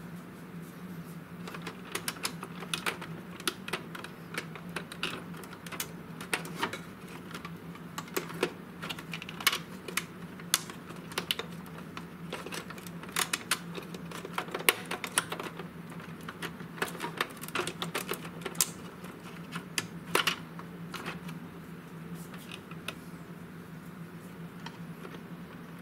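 Irregular light clicks and knocks of plastic parts in an opened Epson L3110 printer as hands work its pickup roller shaft and gears, over a steady low hum.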